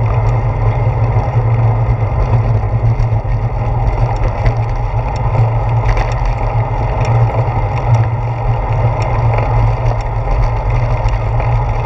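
Bicycle riding noise picked up by a handlebar-mounted GoPro Hero 4 as the bike rolls along a paved path: a steady, loud low rumble of tyres, wind and vibration, with scattered faint ticks and rattles.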